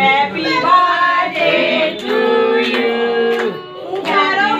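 Singing: a sung melody with long held notes.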